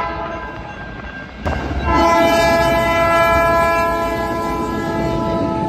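Train air horn sounding a steady multi-note chord. About a second and a half in the sound jumps to a second, louder horn blast over train noise, which is held and then cut off abruptly near the end.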